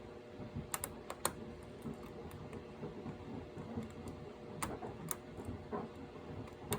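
Lock pick and tension wrench working in a pin tumbler lock: faint scraping and a handful of sharp little metal clicks as the hook lifts the pins.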